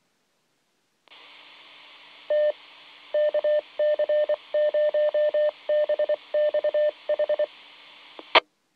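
Ham radio repeater identifying itself in Morse code, a single high beep keyed in short and long elements, heard over a VHF FM radio with background hiss. The carrier ends near the end with a sharp squelch tail burst.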